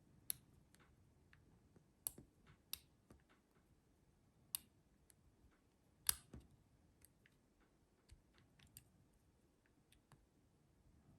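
Faint, irregular metal clicks of a lock pick and tension wrench working the pin stack in the keyway of a Master Lock Pro Series 6321 padlock, a dozen or so small ticks with a louder click about six seconds in.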